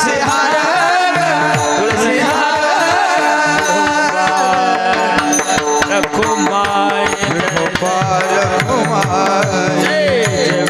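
Devotional kirtan music: singing over steady held tones and a hand drum whose bass strokes bend down in pitch.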